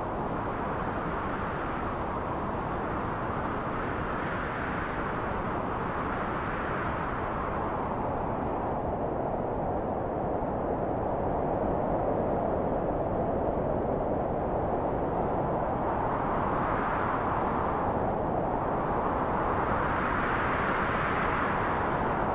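Wind blowing: a steady rushing noise that swells and eases in slow gusts, a few seconds apart, growing a little stronger in the second half.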